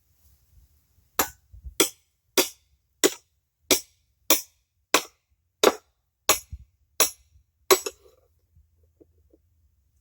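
Hammer blows on the engine, eleven sharp strikes at an even pace of about one and a half a second, then they stop. It is the kind of knocking used to break a part loose that is stuck on an old engine block.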